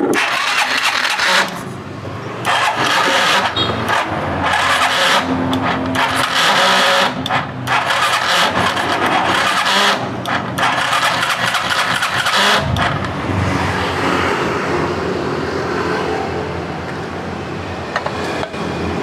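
Yamaha Mio scooter's single-cylinder four-stroke engine, whose carburetor coughs and struggles to idle, run with repeated bursts of throttle and brief drops between them. It settles into a steadier, lower idle about 13 seconds in.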